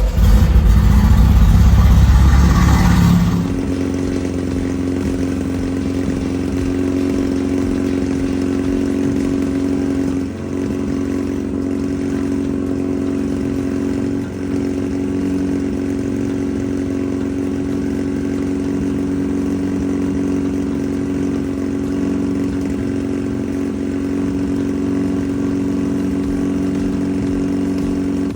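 Air-cooled VW 1776cc flat-four engine running. It is loud and rough for the first three seconds or so, then settles into a steady, even run at constant speed, with two brief dips in the middle.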